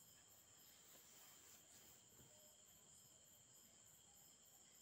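Near silence, with faint high cricket chirping pulsing evenly at about three to four chirps a second.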